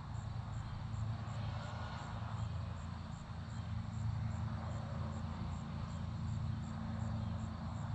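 Lawn mower engine running steadily at a distance, a constant low drone.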